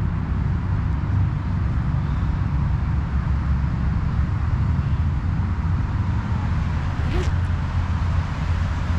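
Steady low outdoor rumble, with one brief faint rising chirp about seven seconds in.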